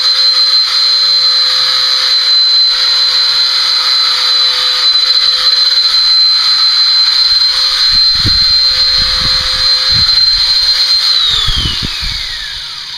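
Electric horse body clippers running with a steady high whine. About eleven seconds in they are switched off, and the pitch falls away as the motor winds down. A few low bumps come in the seconds before.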